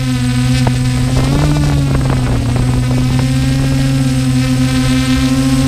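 DJI F550 hexacopter's six brushless motors and propellers, heard from the aircraft, buzzing at a steady pitch that rises briefly about a second and a half in and then settles back. A low rumble runs underneath.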